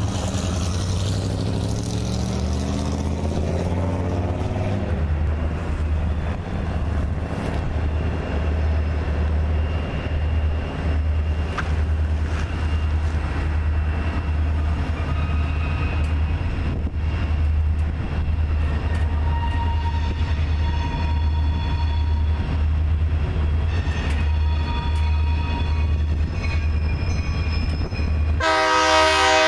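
Diesel locomotives of a loaded coal train rumbling steadily as they approach. About a second before the end, the lead locomotive's air horn sounds a loud chord for the grade crossing.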